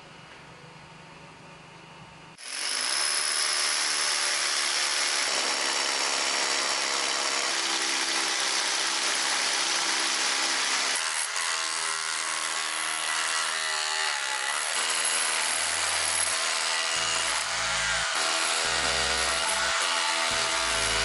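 Hitachi DH24PC3 SDS-plus hammer drill starting up about two seconds in and then running steadily under load.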